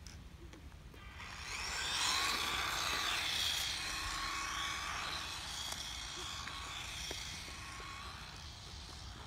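Losi Mini-T 1/18-scale electric RC truck driving on asphalt: a high motor whine comes in about a second in, is loudest for the next couple of seconds, then slowly fades as the truck gets farther away.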